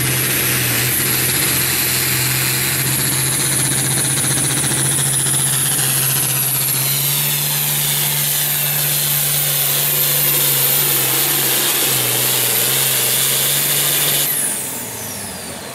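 International Harvester farm-class pulling tractor's diesel engine running flat out under load as it drags a weight-transfer sled, with a high whine over the engine. Near the end the engine sound drops off sharply and the whine falls away as the pull ends.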